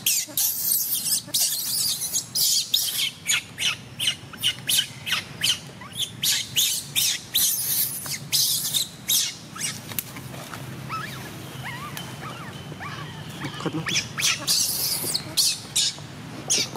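Baby macaque screaming in distress: rapid shrill cries, a few a second. They break off about ten seconds in and start again a few seconds later.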